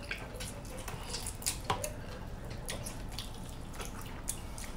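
Close-up wet eating sounds from sauced chicken wings: lip smacks, chewing and sucking on the bones, heard as scattered short wet clicks, the sharpest about a second and a half in.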